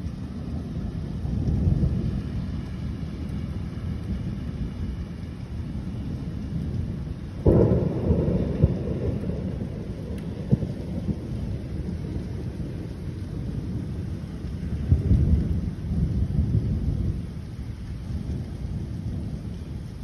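Thunder rolling through a thunderstorm, with a sudden sharp crack about seven and a half seconds in that fades into a long rumble, and another roll of thunder near the end. Steady rain hisses underneath.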